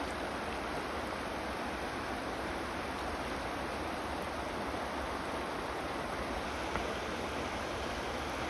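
Steady rush of a shallow river running over stones and small rapids.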